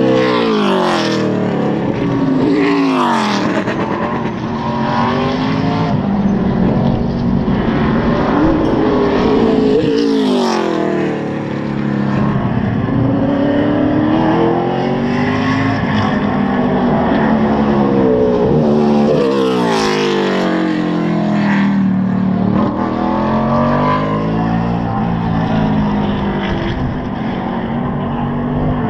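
Vintage NASCAR Cup and Busch stock cars' V8 engines racing past one after another, each engine note rising and then falling away as a car goes by, with the others still heard running around the circuit.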